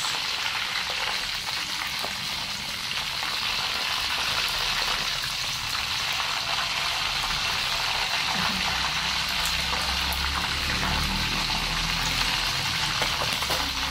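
Prawns deep-frying in hot oil in a wok: a steady sizzling and bubbling.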